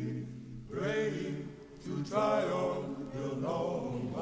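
Background music: slow singing in three drawn-out phrases over a low held note.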